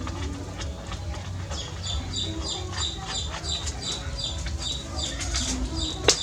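A bird chirping over and over, about three short high chirps a second, over a steady low rumble, with one sharp click just before the end.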